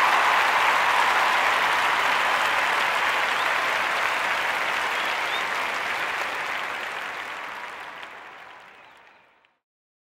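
Applause, fading out over several seconds and stopping about nine and a half seconds in.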